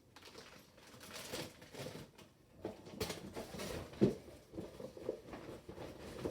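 Faint rustling and handling of toy packaging, with soft knocks and one louder thump about four seconds in.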